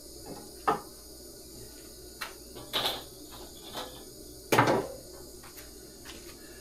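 A few short knocks and clunks of hard objects being handled and set down, the loudest a little over halfway through, over a faint steady high-pitched background.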